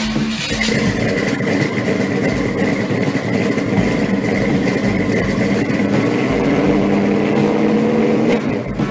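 Car engine held at high revs with a steady high whine over it, running on evenly, then dying away near the end.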